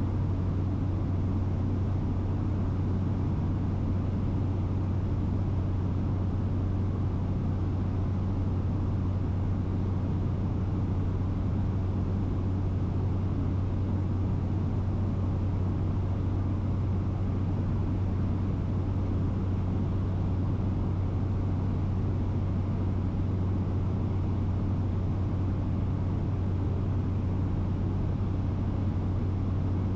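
Cabin noise of a small propeller aircraft in cruise: a steady, deep engine and propeller hum with an even hiss of air noise over it.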